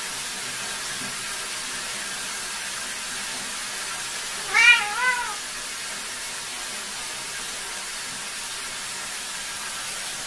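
A domestic cat gives one short two-part meow about halfway through, over a steady hiss.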